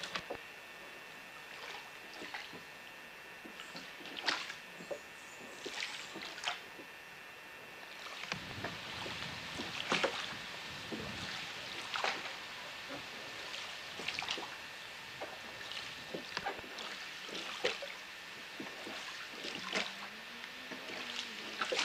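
Rowboat being rowed on a calm river: oars dipping and splashing, with wooden knocks from the oars about every two seconds. The water noise grows fuller from about eight seconds in.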